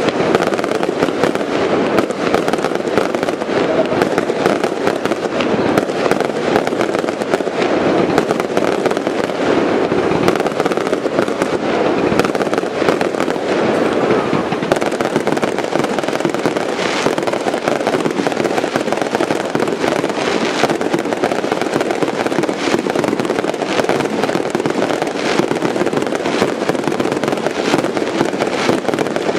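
Fireworks display: a dense, continuous barrage of aerial shell bursts and crackling, with sharper, louder reports standing out now and then in the second half.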